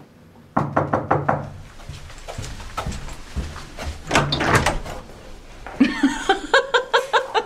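Knuckles knocking on a wooden hotel room door: a quick run of about five knocks about half a second in, and more knocks around four seconds. Near the end a person starts laughing in short, even pulses.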